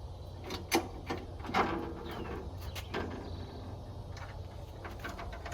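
Corrugated metal hurricane panel knocking and rattling against its track and bolts as it is fitted into place: a few sharp clanks, the strongest about a second and a half in with a brief metallic ring.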